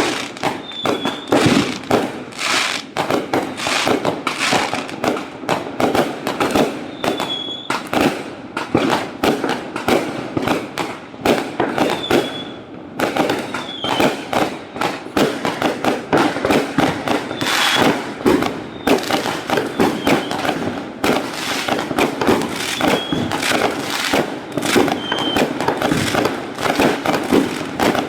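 A dense, continuous barrage of fireworks going off, sharp bangs and crackles overlapping many times a second. A brief high-pitched tone recurs every few seconds.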